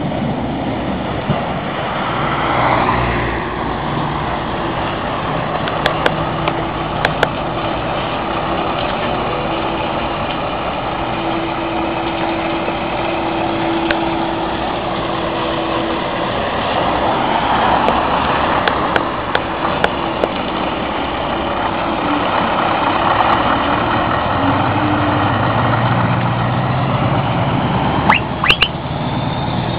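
Heavy lorries driving slowly past one after another, among them a Scania R500 with its V8 diesel, engines running at low speed and swelling as each one passes. A few sharp clicks near the end.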